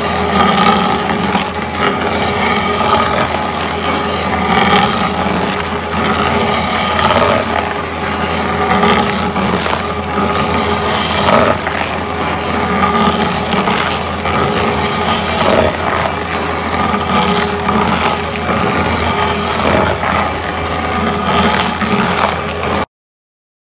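Fecon stump grinder at work: the carrier machine's engine runs steadily under load while the cutter wheel grinds into wood in uneven surges. The sound cuts off suddenly near the end.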